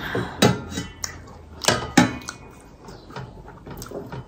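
Brass bowls and plates clinking and knocking as they are handled, about four sharp clinks in the first two seconds with a short metallic ring, then softer handling sounds.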